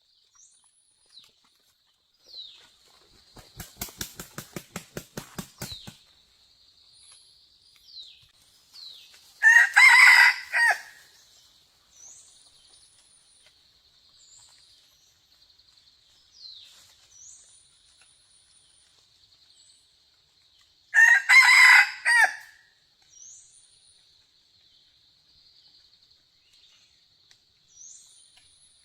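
Red junglefowl cock crowing twice, about ten seconds in and again about twenty-one seconds in, each a short crow. Earlier there is a rapid run of about ten wing-flaps, roughly four a second. A steady insect drone and small bird chirps run underneath.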